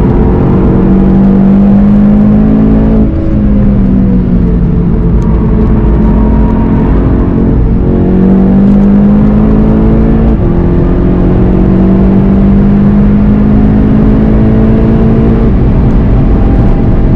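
VW Golf GTI TCR's turbocharged four-cylinder engine pulling hard on track, heard from inside the cabin over steady road noise. Its pitch sags through a corner a few seconds in, then climbs again as the car accelerates, dropping at an upshift about 10 seconds in.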